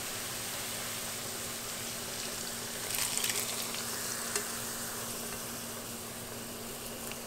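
Chopped green onions frying in hot oil, a steady sizzle. About three seconds in it briefly grows louder and crackles as the hot oil and onions are poured from the skillet into a glass bowl, with a faint steady hum underneath.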